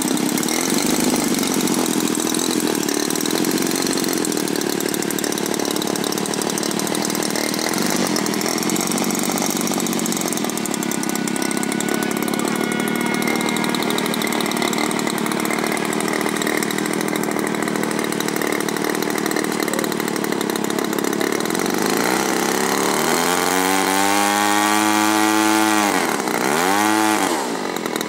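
The propeller engine of a large-scale radio-controlled Cessna runs steadily at low throttle while the model taxis. In the last few seconds its note rises slowly, then dips and climbs again.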